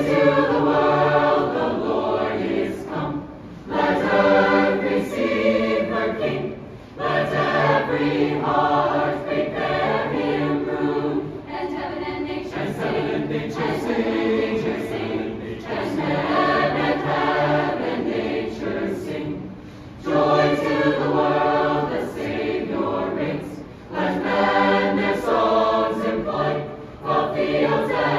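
Mixed-voice choir of carolers singing a cappella in sustained phrases, with brief breaks for breath between them.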